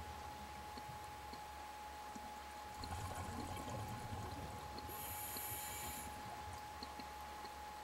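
Scuba diver breathing through a regulator, heard underwater: a rumble of exhaled bubbles about three seconds in, then a short hiss of inhalation around five seconds, over a steady faint whine.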